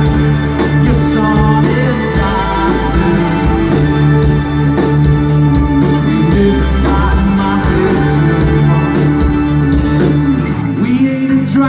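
Live rock band playing an instrumental passage, with electric guitars, bass and drums. The cymbal wash falls away near the end.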